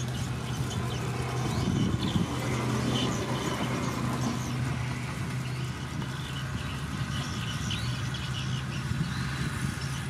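Diesel engine of a Komatsu D31P crawler bulldozer running steadily under load as its blade pushes dirt and rock, growing louder for a moment about two seconds in.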